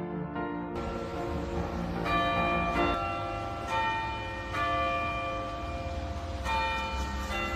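Bendigo clock tower's bells chiming a tune: separate ringing strokes at several different pitches, about one a second, each sounding on into the next. A low rumble of outdoor noise lies underneath.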